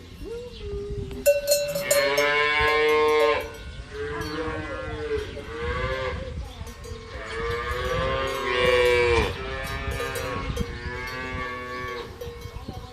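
Cattle mooing: several long, drawn-out moos one after another, with sharp clanks between them.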